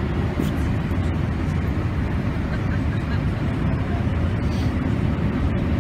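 Steady low rumble of a Boeing jet airliner's turbofan engines and rushing air, heard from inside the cabin during the descent to land.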